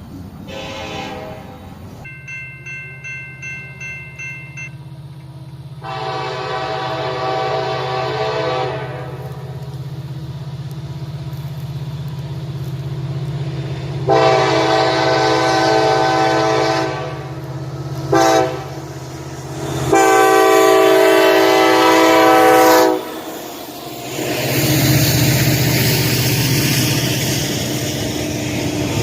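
A Nathan K5 five-chime air horn on a diesel locomotive sounds the grade-crossing signal: two long blasts, one short and one long, over the low running note of the engine. A rapid ringing comes before the first blast, and the rumble and rush of the train passing follows the last.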